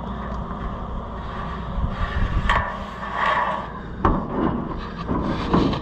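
Combine gathering chain being worked through the sheet-metal point of the head, scraping and rubbing against the tin, with a couple of sharp metallic knocks.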